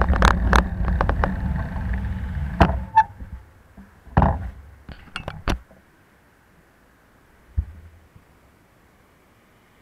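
Wind and rolling noise of a bicycle ride on an action camera, with sharp rattles, dying away about three seconds in as the bike comes to a stop. Then a few scattered clicks and knocks and a single dull thump.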